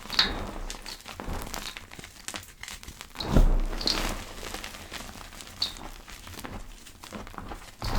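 Gym chalk being crushed: soft, irregular crackling and crunching, loudest in one fuller crunch about three and a half seconds in.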